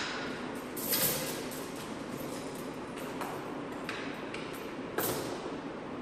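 Metal clinks with a ringing tail, from tools and hardware striking metal during work on a large sprayer tire: two sharper strikes, about a second in and near the end, with lighter taps between, over a steady background hum.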